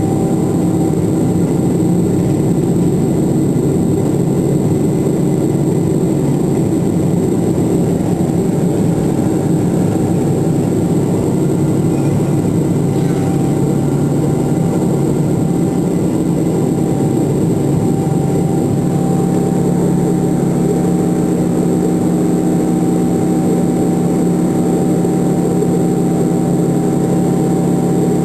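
Boeing 777's GE90 turbofan engines heard from inside the passenger cabin during the climb after takeoff: a steady, loud drone with a deep hum and a thin high whine over it. The hum's tone shifts slightly about two-thirds of the way through.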